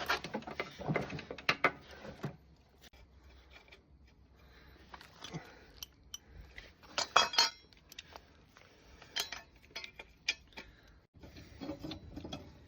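Metal tools and engine mounting hardware clinking and clattering as a lawnmower engine is fitted onto its frame: scattered clicks and knocks, with a louder clatter about seven seconds in.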